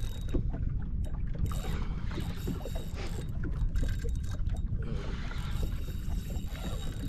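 Water lapping against the hull of a Sea-Doo FishPro personal watercraft, over a steady low rumble of wind.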